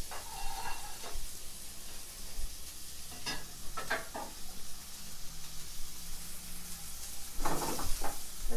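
Ribeye and filet steaks sizzling steadily in a hot oiled pan, with a few brief clatters about three, four and seven and a half seconds in.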